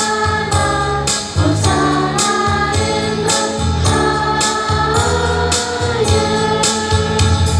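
Choir singing a church hymn with instrumental backing: bass notes and a steady percussion beat at about two strikes a second.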